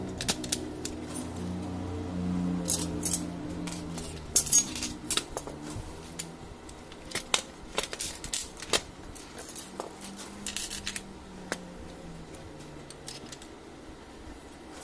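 Irregular clicks and clinks of plastic and sheet-metal parts being handled while an HP LaserJet fuser assembly is taken apart: an end bracket, gear and springs come off and are set down on a tile floor. The clicks are thickest in the middle and thin out near the end.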